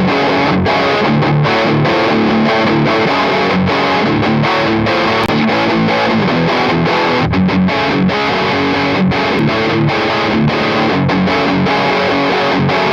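Recorded electric guitar riff played back through amp-simulation plugins with heavy high-gain distortion, dialled towards a Peavey 5150-style tone. It plays on steadily at full level.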